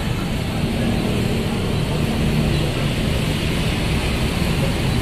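Street traffic: a steady low rumble of passing vehicles.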